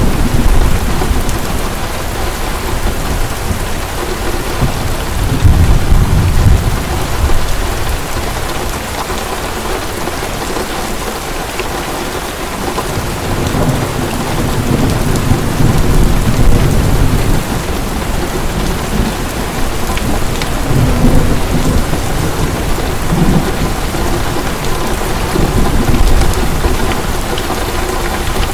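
Heavy rain falling steadily, with low rolls of thunder swelling and fading several times.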